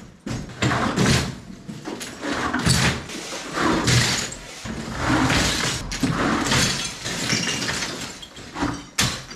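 Crushed stone and rubble tipped out of a bucket onto a rubble-strewn floor, clattering and rattling in a string of uneven bursts, with gravel crunching underfoot.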